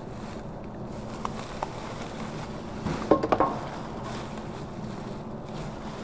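Black plastic bin bags rustling as gloved hands shift them about in a large wheeled bin, with a quick cluster of sharp knocks a little past halfway. A steady low hum runs underneath.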